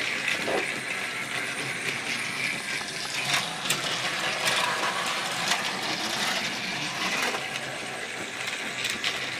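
Battery-powered TrackMaster toy trains running on plastic track: a steady mechanical rattle from their small motors and wheels, with scattered sharp clicks.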